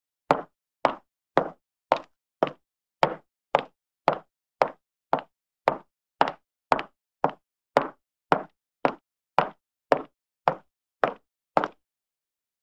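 Footsteps walking at a steady pace on a wooden floor, about two even steps a second, each a hollow knock. The steps stop shortly before the end.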